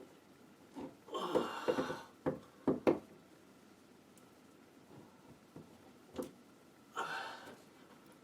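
Hand-tool work on a door hinge with large slip-joint pliers: a scraping rasp about a second in, then a few sharp metallic knocks, and another short scrape near the end.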